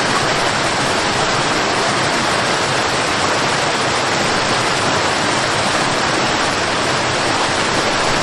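Waterfall: water falling and splashing in a steady, even rush with no breaks or changes.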